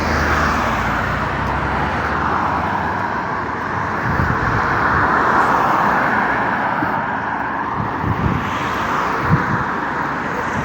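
Street traffic going past: a steady wash of tyre and engine noise that swells and eases as vehicles pass.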